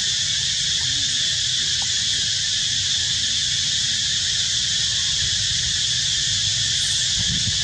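A steady, unbroken high-pitched insect chorus that holds the same pitch and level throughout, over a low rumble.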